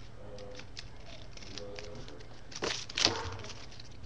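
Folded paper being handled close to the microphone: light ticks and rustles, then two short, louder rustles a few seconds in, the second the loudest.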